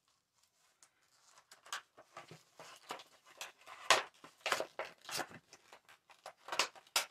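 Makeup packaging handled as a highlighter is got out for swatching: irregular crinkling and sharp clicks, starting about a second in, the loudest around four seconds in and near the end.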